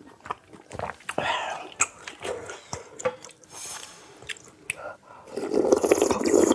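Close-miked eating sounds: chewing with small wet mouth clicks, then a loud slurp of spicy ramen broth from a wooden spoon about five seconds in, lasting about a second.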